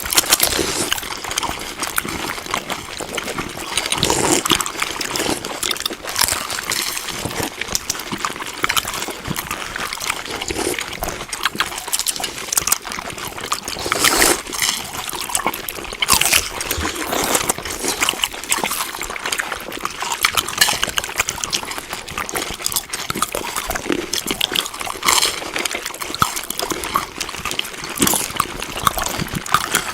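Chewing food: a continuous crackle of mouth noises with louder crunches every second or two.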